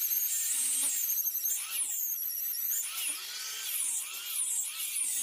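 Small electric power tool running with a high whine that wavers up and down in pitch.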